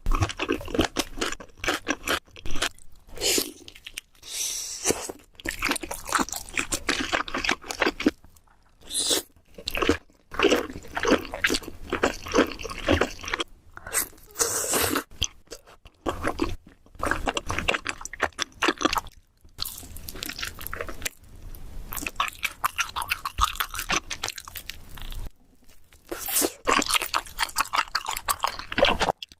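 Close-miked chewing and crunching of food: dense runs of crisp crunches, broken by several short pauses between bites.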